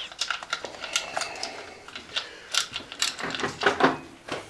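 Irregular metallic clicks and clanks of hand tools and engine parts being handled, with a few louder knocks near the end.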